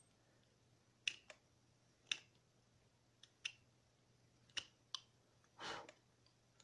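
Carving knife cutting chips from a small piece of wood being whittled: about seven short, sharp clicks at irregular intervals as the blade pops through the grain, then a longer slicing stroke near the end.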